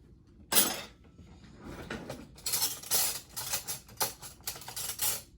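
Kitchen dishes and utensils knocking and clattering: one sharp knock about half a second in, then a run of quick clattering clicks for the last few seconds.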